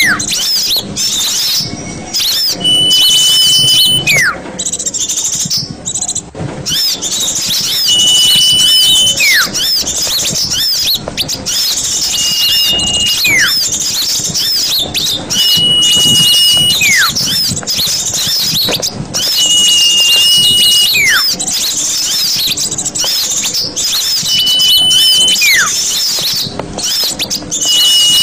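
Bird-lure recording of small birds: dense high chirping and chattering, with a held whistle followed by a falling whistle repeating about every four seconds in a loop.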